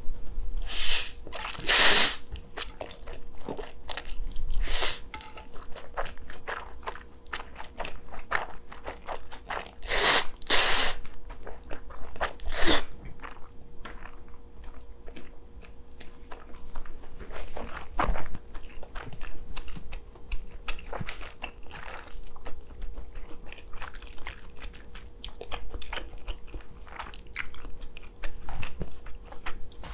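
A person chewing and biting close to the microphone while eating spicy stir-fried noodles and kielbasa sausages: many small wet clicks and crackles, louder about a second in and again around ten seconds in.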